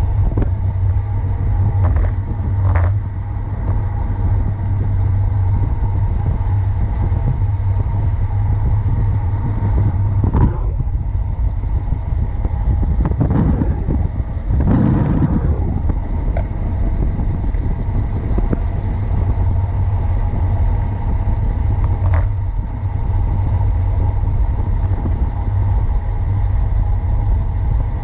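Wind buffeting a bike-mounted action camera's microphone, with tyre rumble on asphalt during a fast road-bike descent. The rumble is steady and grows louder for a couple of seconds about halfway through, with a few short knocks scattered through it.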